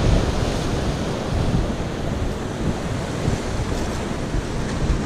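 Sea surf washing and breaking against rocks, a steady rushing noise, with wind buffeting the microphone and adding a low rumble.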